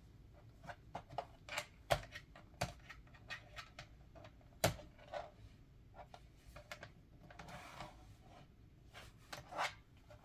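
Plastic bottom case of an MSI GF63 Thin laptop being pried open around its sides: a string of irregular sharp clicks and snaps as the case clips release, with a brief rub of plastic near the end.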